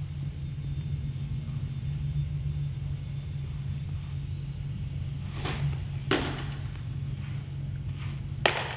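Three sharp baseball impacts, the first two about half a second apart some five seconds in and the third near the end, over a steady low rumble.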